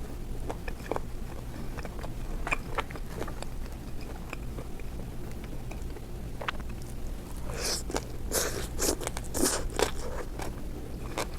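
A person biting and chewing crunchy food close to the microphone: scattered small crunches and clicks, then a run of louder crunches between about seven and ten seconds in.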